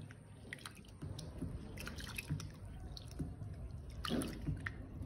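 Faint splashing and squelching of a hand rubbing and squeezing roasted split moong dal in a steel bowl of water as the lentils are washed. The small wet clicks start about a second in.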